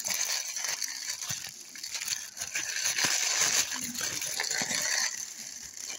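White paper wrapping rustling and crinkling as it is handled and pulled off a baseball by hand, a steady rustle with many small crackles.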